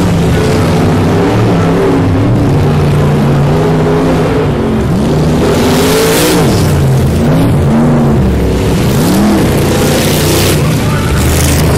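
Off-road race vehicle's engine revving up and down as it races on a dirt track, its pitch climbing and dropping several times in quick succession around the middle.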